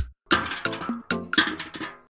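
Background music with a fast, steady beat and pitched notes, after a brief break right at the start.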